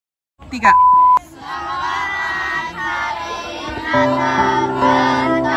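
Video glitch-transition sound effect: a brief static sweep, then a loud steady test-tone beep lasting about half a second. It is followed by a group of children and women singing together with musical accompaniment.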